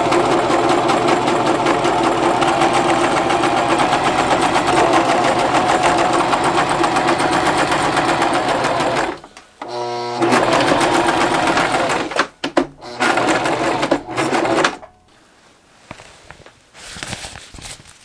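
Sewing machine stitching through a Gore-TEX jacket hem at a fast, even pace. It runs steadily for about nine seconds, stops briefly, then runs again in shorter stretches before stopping a few seconds before the end.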